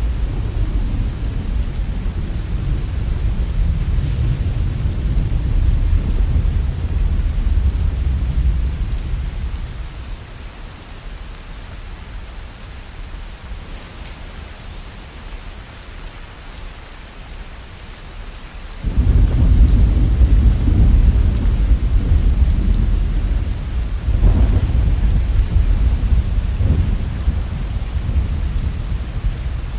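Heavy rain falling steadily, with thunder rumbling over it. The first rumble fades away about ten seconds in. A sudden loud peal breaks about nineteen seconds in and rolls on for about ten seconds, swelling twice more.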